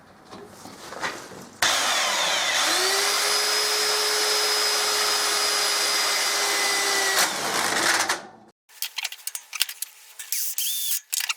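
Mains-powered impact driver running a self-drilling tek screw into a steel bracket: the tool starts suddenly, its motor whine climbs and then holds steady for about six seconds before stopping. Short bursts and clicks follow near the end.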